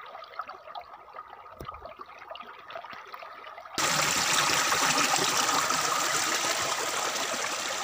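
Shallow stream water trickling and rushing over rocks close to the microphone, faint and crackly at first, then suddenly much louder about four seconds in.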